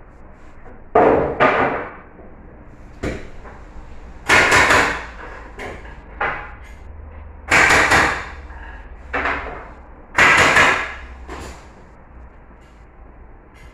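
Pneumatic nail gun or stapler firing into the pine box-bed frame: about ten sharp shots, a few in quick clusters, each trailing off briefly.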